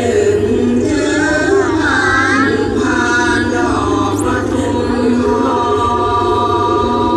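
Sung or chanted vocal music from the show's soundtrack: a wavering, bending melody in the first few seconds, then long held notes in the second half, over a steady low backing.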